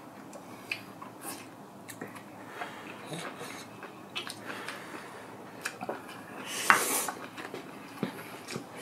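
Close-up eating sounds: noodles slurped into the mouth and chewed, with scattered clicks of chopsticks against the bowl and one louder, longer noisy sound about seven seconds in.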